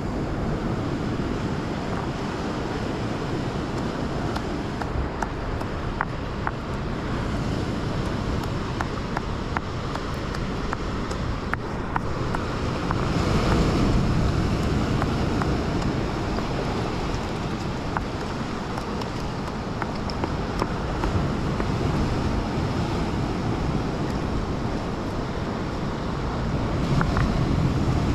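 Wind buffeting the microphone over the steady wash of ocean surf breaking against rocks. The noise swells about halfway through and again near the end, with a few faint clicks.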